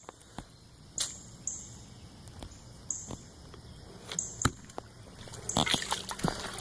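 Footsteps through mud and floodwater: scattered sharp clicks and snaps, then from about five and a half seconds in a denser run of sloshing and splashing as the wading picks up.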